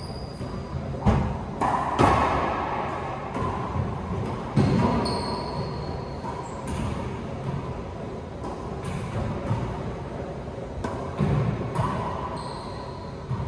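Racquetball rally: sharp, echoing cracks of the rubber ball off racquet strings and the court walls, a dozen or so hits at an uneven pace, with brief sneaker squeaks on the hardwood floor.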